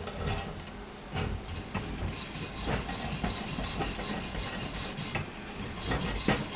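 Flux-core wire-feed welding arc from a Hobart 190 MIG welder, crackling and sputtering steadily as a bead is laid.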